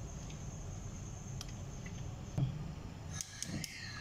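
Silicone spatula scraping thick mango purée out of a blender jar into a steel saucepan: soft scraping with a few light taps, and a small cluster of clicks near the end, over a low steady hum.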